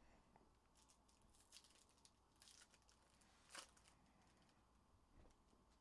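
Near silence with faint crinkling and a few light clicks of foil trading-card packs being handled and opened; the sharpest click comes about three and a half seconds in.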